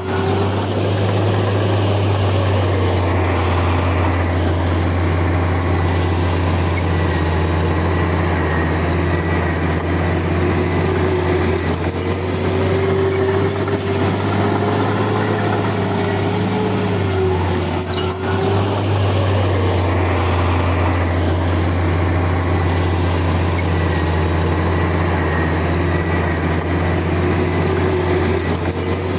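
Komatsu bulldozer's diesel engine running loud and steady under load as it pushes soil, its pitch rising and falling with the work, with a brief dip about 18 seconds in.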